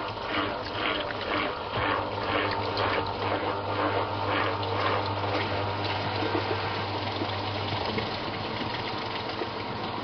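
Samsung WA89V top-load washing machine working water in the tub: rhythmic swishing about twice a second over a steady motor hum. The swishing stops about halfway through, the hum a few seconds later, and water keeps running.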